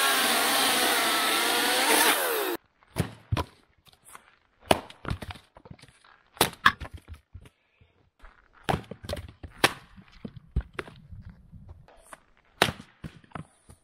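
Ryobi electric chainsaw with a new chain cutting through firewood, its motor pitch wavering as it bites, then cutting off suddenly about two and a half seconds in. A run of sharp, irregular wooden knocks and cracks follows as the cut wood is handled.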